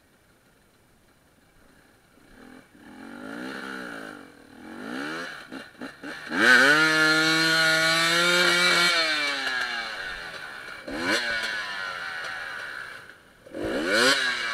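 Off-road enduro motorcycle engines revving in bursts, starting about two seconds in. One is held at high revs for a couple of seconds in the middle and then drops away, and two more quick blips of the throttle come near the end.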